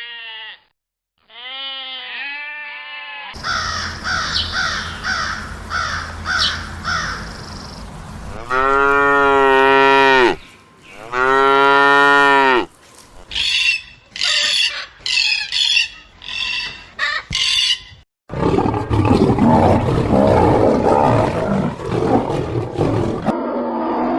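A run of different animal calls edited one after another: short wavering calls at the start, two long drawn-out calls in the middle, then a quick series of short calls, and a rough, noisy call near the end.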